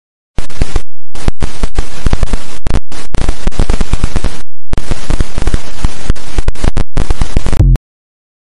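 Harsh, extremely loud, heavily clipped crackling noise like distorted static. It starts suddenly about half a second in, breaks off in a few brief dropouts, and cuts off abruptly near the end.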